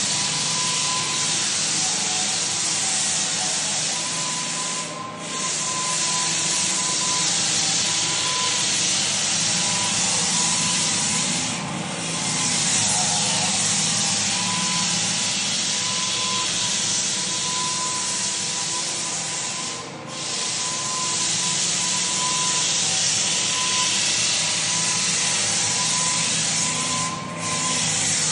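Steady running noise of a motor-driven machine with a high whine, dipping briefly four times.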